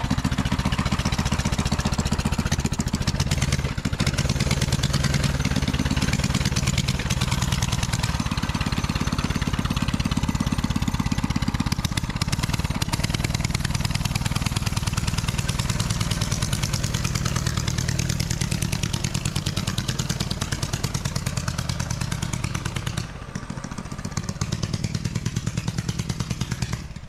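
Predator 224 single-cylinder four-stroke engine on a mini bike running steadily on its first test start, briefly dropping off about 23 seconds in before picking back up.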